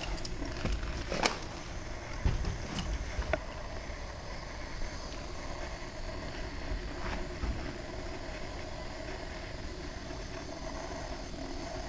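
Footsteps and a few sharp knocks on a debris-strewn concrete floor in the first few seconds, then a steady low hiss of background noise.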